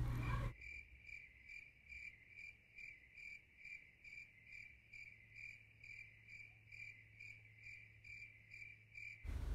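Cricket chirping sound effect: a steady, even run of chirps at about three a second, faint, starting abruptly about half a second in and cutting off just before the end. It is the usual comic "crickets" cue for waiting in silence.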